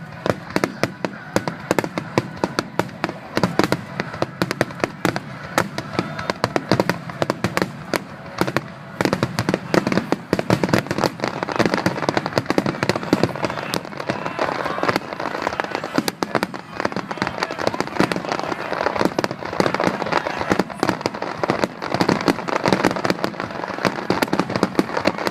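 Fireworks display: a dense, continuous run of sharp bangs and crackling from shells bursting, with crowd voices underneath.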